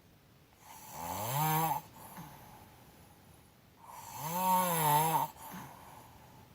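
A woman snoring with her mouth open: two long snores about three seconds apart, each a drawn-out buzzing tone that wobbles in pitch.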